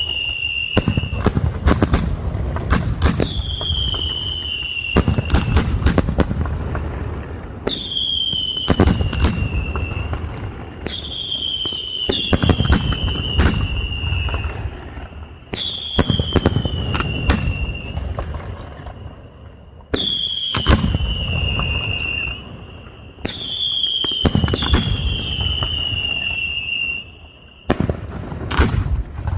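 Castillo fireworks display: a string of high whistles, each falling slightly in pitch and repeating every few seconds, over dense bangs and crackling bursts.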